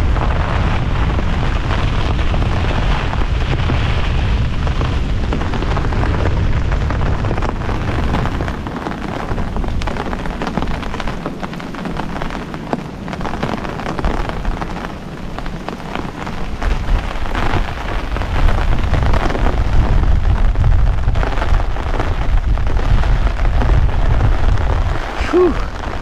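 Heavy wind-driven rain and strong gusting wind buffeting a Gazelle T3X hub tent, its nylon fabric flapping, with a deep wind rumble. The gusts ease somewhat in the middle and build again later.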